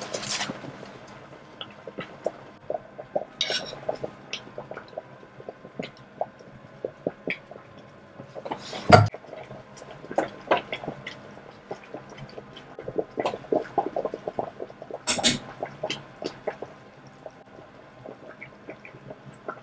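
Pot of water boiling on the stove for lasagna sheets: irregular bubbling and popping, with two louder knocks or splashes about nine and fifteen seconds in.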